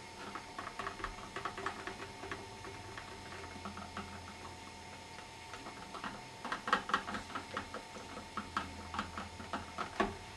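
Wet fine mesh straining bag full of rhubarb pulp being worked and squeezed by hand: quick, irregular crackling and squelching clicks, busiest about six to seven seconds in.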